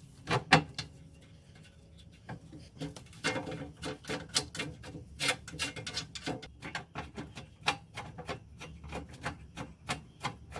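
Wrench work on the 13 mm bolts of a car's underbody skid plate, the bolts being backed out: irregular metallic clicking and scraping, a couple of sharp clicks near the start, then denser from about two and a half seconds in.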